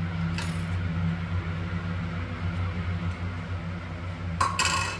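Steady low hum under a light clink about half a second in and a brief clatter of hard parts near the end, as sink drain parts are handled and fitted.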